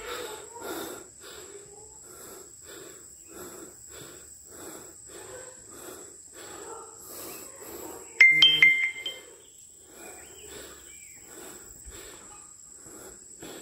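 Heavy, rhythmic panting of a hiker winded from climbing a long, steep flight of steps, about two breaths a second, over a faint steady high tone. About eight seconds in, a brief, sharp, high-pitched call cuts in and is the loudest sound.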